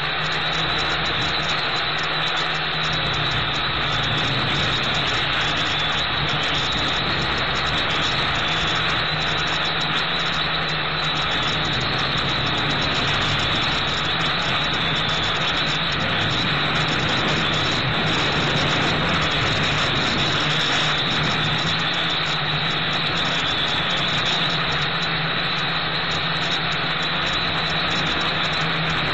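Gptoys Aviax F2C quadcopter's electric motors and propellers running steadily in flight, heard through the drone's own onboard camera microphone.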